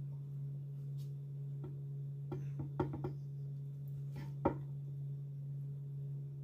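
Knife cutting through a rolled omelette and tapping a wooden cutting board several times, the sharpest tap about four and a half seconds in, over a steady low hum.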